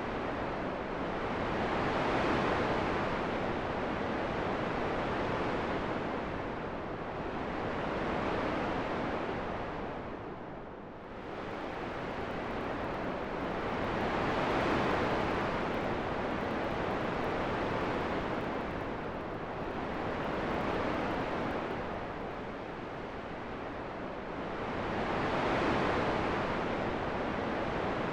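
Wind blowing as a steady rushing noise that swells and eases in slow gusts about every six seconds, with a short lull a little before the middle.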